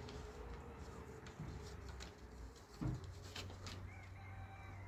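Faint rustling and small ticks of a sheet of paper being handled, over a low steady hum, with one brief low thump about three seconds in.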